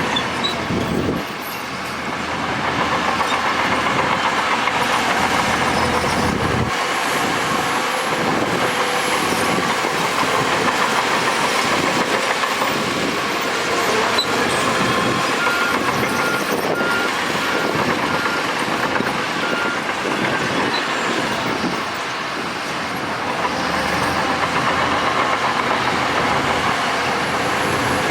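Heavy earthmoving machinery working: a crawler bulldozer's diesel engine runs under load with its steel tracks clattering. A reversing alarm beeps several times about two-thirds of the way through.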